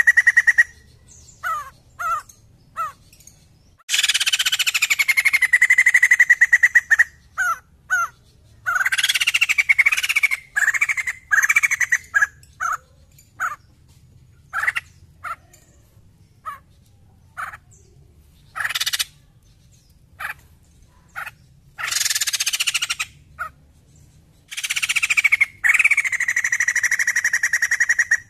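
White-crested laughingthrush (poksay jambul) calling loudly. Long harsh chattering bursts of a few seconds each alternate with short single chirps.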